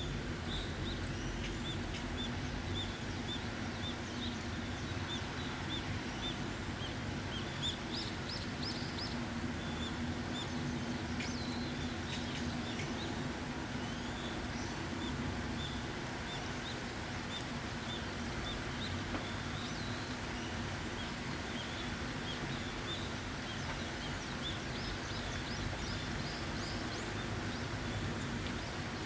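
Steady rainfall with small birds chirping repeatedly over it, short high chirps coming several times a second, with a busier flurry of higher calls about eight seconds in.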